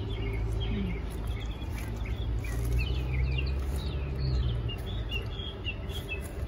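Small birds chirping again and again in short, high calls, over a low steady rumble.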